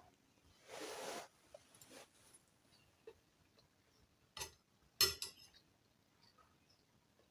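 Cutlery on a plate of rice and stew as food is tasted: a short scrape about a second in, then two sharp clinks a little over half a second apart near the middle, the second the loudest.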